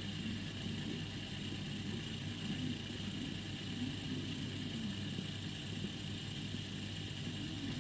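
Hitachi TRK-3D30 radio-cassette recorder running on test, its speaker giving a steady hiss over a low hum and a faint murmur.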